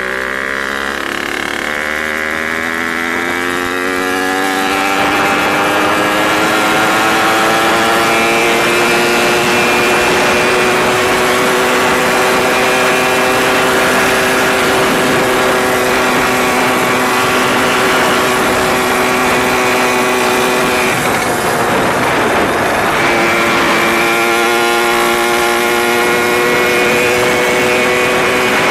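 Small two-stroke motorized-bicycle engine with a Suzuki RM80 expansion-chamber exhaust and carburetor, run flat out for a top-speed run. Its pitch climbs over the first few seconds as the bike accelerates, then holds high and steady. It dips briefly about three quarters of the way through and then climbs back.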